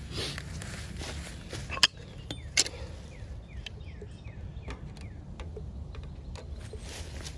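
Thumb-pump oil can being worked over a chainsaw mill's bar: a few sharp pump clicks, two loud ones about two seconds in, then fainter ones about once a second, with short high squeaks between. A low outdoor rumble runs underneath.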